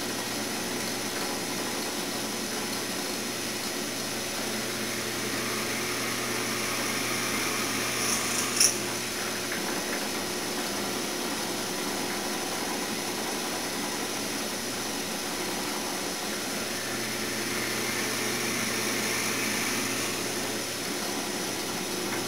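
Drill press running steadily, its bit boring a dowel hole into a cherry handle blank held in a small vise. Two sharp clicks come about eight seconds in.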